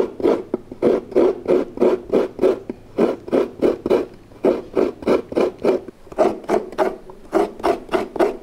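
A halved coconut being scraped against the serrated metal blade of a bench-mounted coconut scraper, grating out the white flesh in a steady run of scraping strokes, about three a second.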